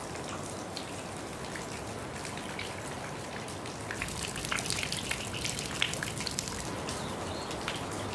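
Water trickling and dripping off a rock overhang: a steady hiss of falling water, joined about halfway through by a patter of separate drops splashing into a shallow pool.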